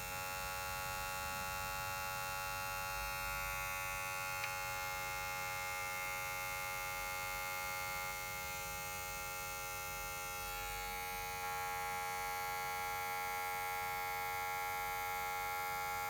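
Cordless hair clipper (Wahl Magic Clip) running steadily with a constant buzzing hum, its motor drive noisy from worn parts, the wear at the drive part and shaft tip. A small click sounds about four seconds in.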